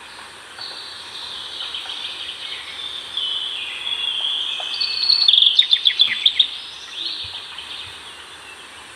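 Forest birdsong: high trills and runs of notes that build over several seconds. The loudest is a rapid series of sharp notes, about seven a second, some five to six seconds in, and it then fades.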